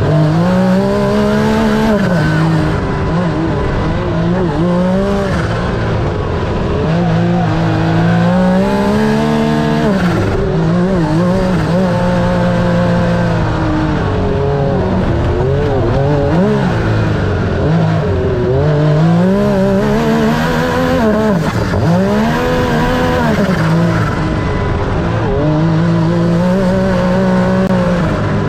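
Yamaha YXZ1000R side-by-side's engine revving hard as it is raced around a dirt track, pitch climbing and dropping again every few seconds through shifts and corners.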